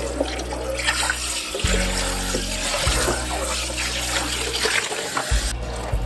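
Kitchen faucet running, its stream splashing onto a clear plastic refrigerator drawer in a stainless steel sink as the drawer is rinsed. The splashing thins out sharply about five and a half seconds in, over low, steady background music.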